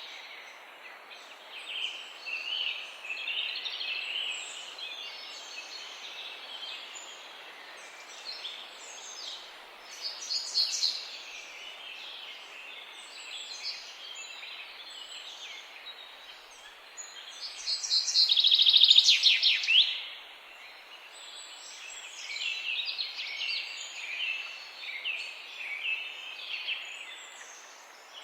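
Several songbirds chirping and singing over a steady background hiss, with a louder song phrase about ten seconds in and a loud, rapid run of notes about eighteen seconds in.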